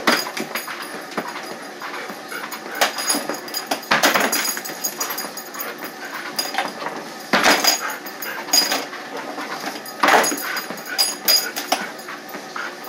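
German Shepherd vocalizing beside a running treadmill, over the treadmill's steady high whine, with several loud thumps, the biggest about 4, 7½ and 10 seconds in.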